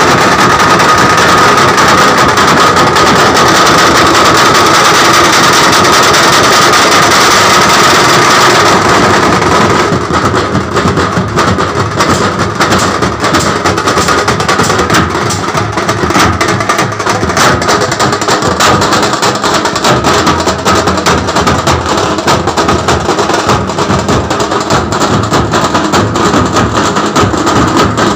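A street drum troupe beating large stick-played drums together in a loud, dense rhythm. A steady high tone runs under the first ten seconds and then drops away as the drumming texture changes.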